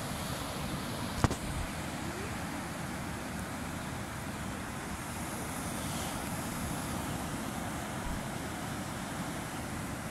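Waves breaking and washing up a sandy beach, a steady rushing hiss, with wind buffeting the microphone. A single sharp click about a second in.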